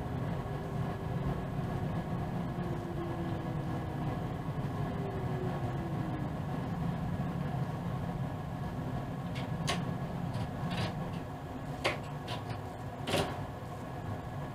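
ÖBB class 4124 electric multiple unit heard from the driver's cab: a steady low running rumble with a faint whine that falls in pitch over the first few seconds. Later the rumble eases and a handful of sharp clicks and knocks sound.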